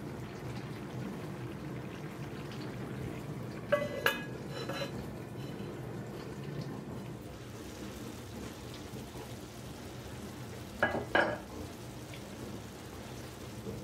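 Bulgur pilaf simmering in an enamelled cast-iron pot, a steady low bubbling hiss. The heavy lid clinks and rings against the pot in two quick pairs of knocks, about four seconds in and again near eleven seconds.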